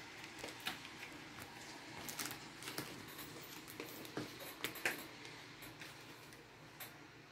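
Paper and packaging being handled: faint, scattered rustles and light clicks, the sharpest about five seconds in.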